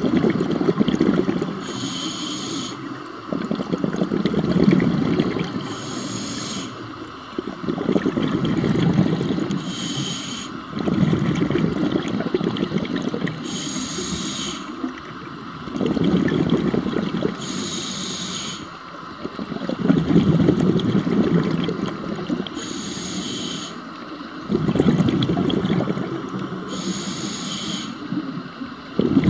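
Scuba diver breathing through a regulator underwater, about seven breaths at a steady pace of roughly one every four seconds. Each breath is a short hissing inhale followed by a longer burble of exhaled bubbles.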